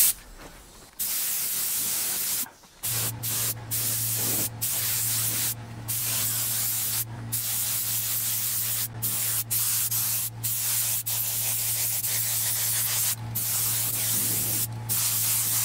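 Air-fed touch-up spray gun hissing as it sprays leather dye at about 2 bar, in long bursts broken by brief pauses as the trigger is released between passes. A steady low hum joins about three seconds in.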